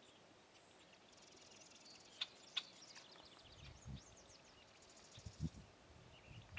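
Faint outdoor ambience of small songbirds chirping and trilling, with two sharper chirps about two seconds in. Faint low rumbles come in during the second half.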